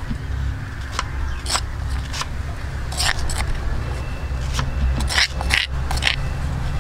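Scattered clicks and short scrapes of a utensil against a stone mortar as pounded curry paste is scraped out onto a tray, over a low steady rumble.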